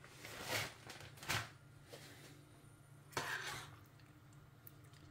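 Grated cheddar shaken from a plastic bag into a stainless saucepan of macaroni cheese, then stirred in with a utensil against the pan: three short, faint rustles and scrapes.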